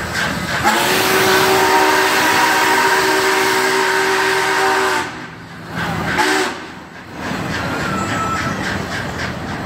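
Union Pacific 844's steam whistle sounding a chord of several notes from the head of the train: one long blast of about four seconds, then a short blast about a second later. Underneath runs the steady rumble and clatter of the train's cars rolling past.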